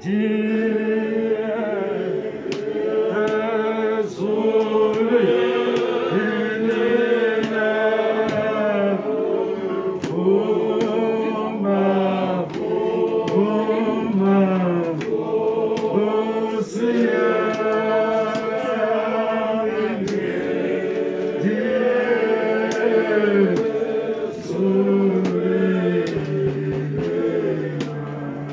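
Congregation singing a Zulu hymn together in several voice parts, with a regular sharp beat keeping time.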